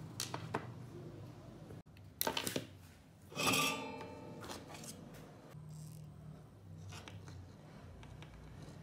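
Small parts being handled on a wooden workbench: scattered clicks and taps, and a louder clatter with a brief ring about three and a half seconds in.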